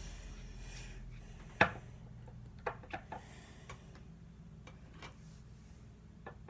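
Scattered small clicks and taps from foundation bottles being handled, one sharper click about a second and a half in and lighter taps after it.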